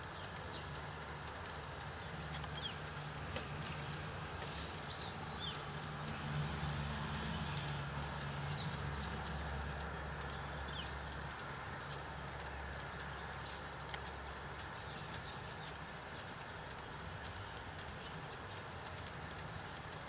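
Steady hiss of rain, with small birds giving short, high chips and squeaky calls scattered throughout. A low rumble swells a couple of seconds in and fades by about the middle.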